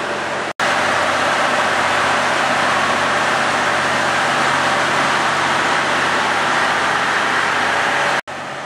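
The diesel engine and cooling fans of a standing ex-JR Hokkaido KiHa 183 diesel railcar running steadily close by, a loud even hum. The sound breaks off sharply twice, about half a second in and near the end.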